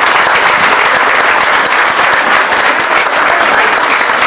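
Audience applauding: many hands clapping, dense and steady.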